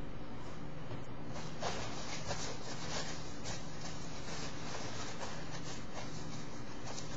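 Paper tissue crinkling and rustling as it is handled, a run of quick irregular crackles starting about a second in, over a steady hiss and low hum.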